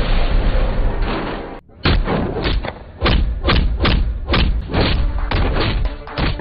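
Film fight sound effects: a loud rushing noise for the first second and a half, a brief hush, then a fast run of heavy punches and blows landing roughly every half second, with voices mixed in.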